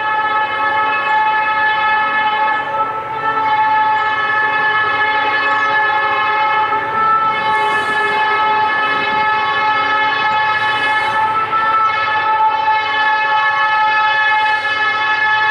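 Air horn of an approaching SD40-2 freight locomotive sounding one long, unbroken blast, its several tones held steady with a slight waver.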